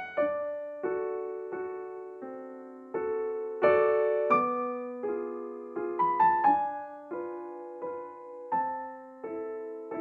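Background music: slow, gentle solo piano playing struck notes and chords about every 0.7 s, each left to ring and fade, with a quick run of notes about six seconds in.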